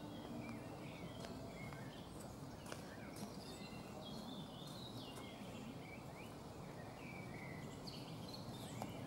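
Songbirds chirping and singing faintly, many short calls over steady outdoor background noise, with a few faint clicks.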